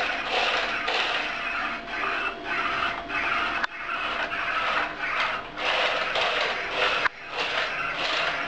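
iRobot Create robot's wheel drive motors running, a mechanical whirring and scraping that comes in uneven pulses of about half a second and breaks off abruptly twice.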